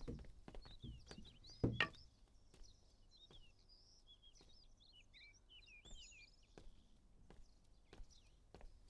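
Small birds chirping and twittering steadily in the background, with scattered light knocks and footsteps and one louder thump just under two seconds in.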